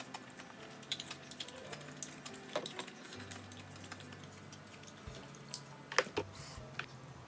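Soft background music under close eating sounds: pho broth sipped from a paper cup, rice noodles lifted and slurped, and light clicks of chopsticks against the cup, the sharpest click about six seconds in.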